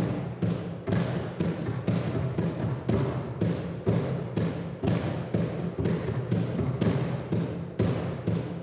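Two hand drums played together with bare hands, a large hide-headed drum and a djembe, in a steady beat of about two strokes a second with lighter strokes in between.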